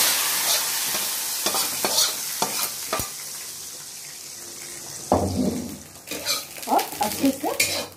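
Hot oil tempering of cumin, bay leaves and dried red chillies sizzling as it hits the moong dal, the hiss fading over the first few seconds. A metal ladle then knocks a few times against the pan and stirs the dal.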